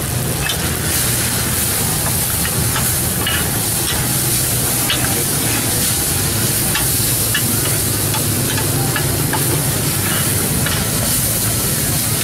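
Noodles, bean sprouts, egg and shrimp sizzling steadily on a large hot flat pan while two metal spatulas toss and scrape them, with frequent short clinks of metal on the pan. A steady low hum runs underneath.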